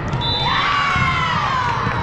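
Girls' volleyball players shouting and cheering together: several high voices in long calls that fall in pitch. A short, steady high whistle-like tone sounds just before them.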